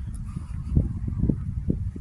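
Gusty wind buffeting the microphone: a low rushing noise that rises and falls in uneven gusts.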